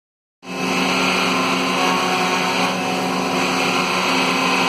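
Router motor on a Maslow CNC running steadily while its 1/4-inch bit cuts through plywood at 800 mm/min with a 0.15-inch depth of pass. The sound cuts in abruptly about half a second in.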